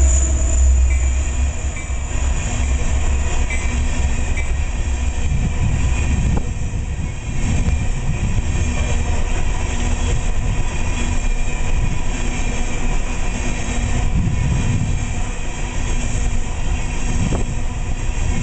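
A passing BNSF coal train. The trailing EMD SD70MAC diesel locomotive runs with a heavy low drone that dies away within the first couple of seconds. After it, a long string of empty aluminium coal gondolas rolls past close by: a steady rumble of steel wheels on the rail, with rattling and knocks from the cars.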